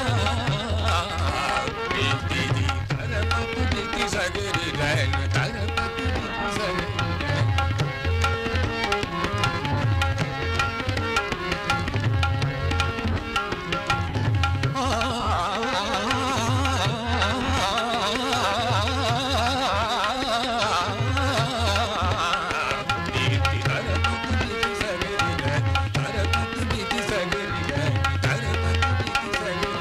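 Hindustani classical vocal music in raag Bhatiyar: tabla plays a brisk rhythm with regular deep bass-drum strokes under a melodic line, which breaks into fast rippling runs around the middle.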